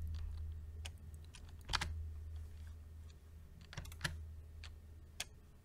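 Scattered computer keyboard keystrokes, a handful of separate taps a second or so apart, over a steady low hum.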